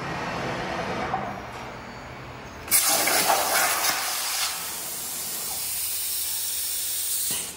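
Plasma torch on a CNC plasma table cutting steel plate. After a softer hiss, the arc strikes almost three seconds in with a sudden loud, steady hiss, then cuts out briefly at the very end.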